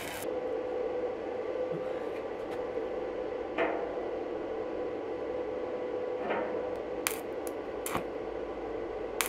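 A steady hum with a few light metal knocks as a wheel is fitted to a steel frame, then short crackles of arc welding about seven and eight seconds in, with a longer burst of welding crackle starting near the end.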